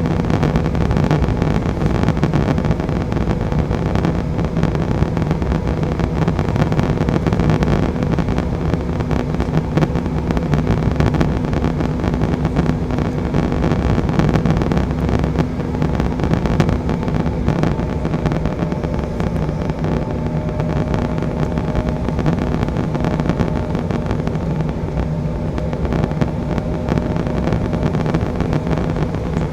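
Steady cabin noise of an Embraer E175 on descent toward landing: the hum of its two General Electric CF34 turbofans and the rush of air past the fuselage. A faint higher whine joins about two-thirds of the way through.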